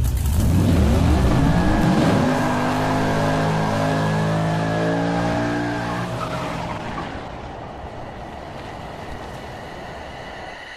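A car engine revving hard with its tyres squealing, as in a burnout. The engine note rises over the first couple of seconds, holds, and the whole sound fades away over the last few seconds.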